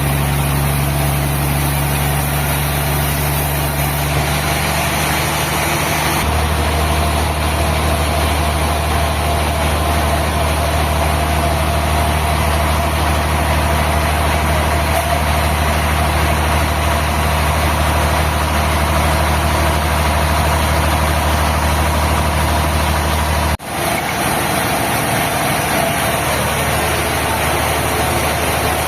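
Sawmill machinery running steadily with a low engine-like hum. The sound breaks off for an instant about 23 seconds in and comes back with less of the low hum.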